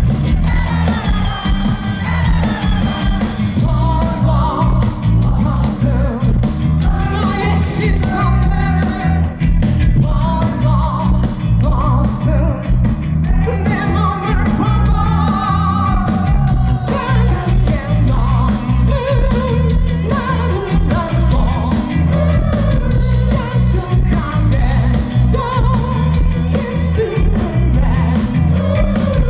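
Rock band playing live, a male lead vocalist singing over loud drums, bass and guitar, with a heavy low end.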